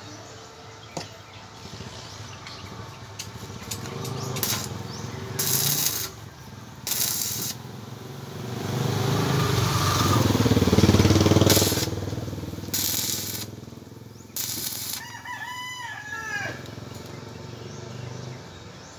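Stick welding of rebar joints: several short bursts of crackling, sizzling arc as joints are tack-welded, with a longer, louder stretch around the middle. A rooster crows once about three-quarters of the way through.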